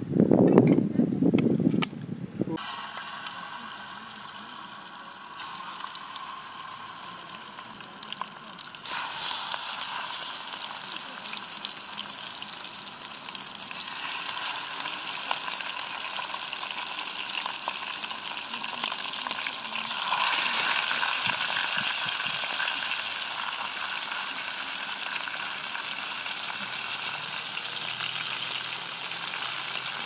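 Chicken pieces frying in a pot of hot oil: a loud, steady sizzle starts suddenly about nine seconds in as the drumsticks go into the oil, and grows louder again about twenty seconds in as more pieces are added.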